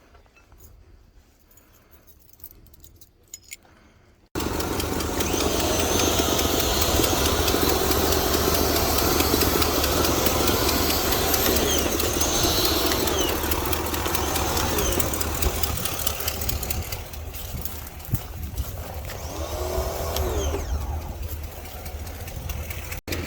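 A motor starts abruptly about four seconds in and keeps running with a steady low hum and a loud hiss, after a few faint clicks.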